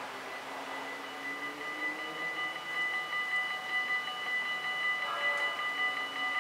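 Level-crossing warning bells of a Dutch automatic half-barrier crossing ringing, a rapid steady ding that starts about a second in and grows louder, signalling that a train is approaching and the barriers are about to lower.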